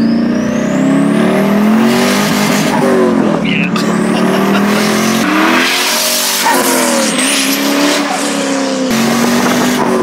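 The 5.7-litre LS1 V8 of a twin-turbo C5 Corvette pulls under throttle, its revs rising and falling several times. Over the engine, the rear-mounted turbos whistle, climbing steeply in pitch as they spool up.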